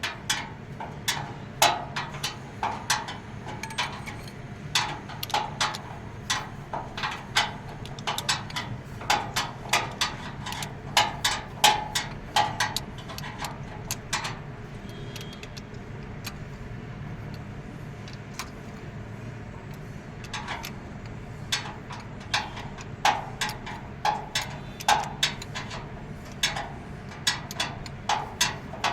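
Irregular sharp metallic clicks and taps of hand tools at work on an excavator engine during a head gasket fitting, about one to three a second, with a pause of several seconds midway. A steady low hum runs underneath.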